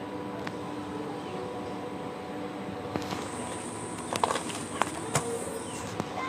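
Steady background room noise with a faint hum, broken by a handful of sharp clicks about three to six seconds in.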